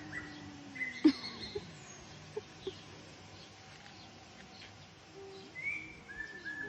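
Faint bird chirps over steady background noise, with one sharp tap about a second in.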